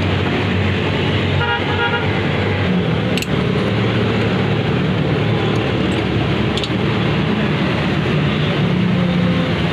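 Road traffic noise with a steady low engine hum. A vehicle horn toots in a short run of quick beeps about one and a half seconds in.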